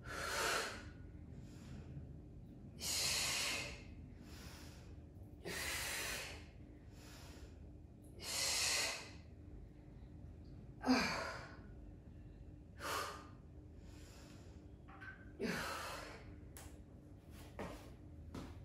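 A woman breathing hard from exertion during lunges, with a forceful exhalation about every two to three seconds, a few of them carrying a low voiced grunt.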